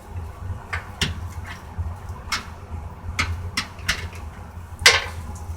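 Scattered light clicks and knocks of plastic parts being handled and fitted on a washing machine, about ten in all, the loudest one near the end, over a steady low hum.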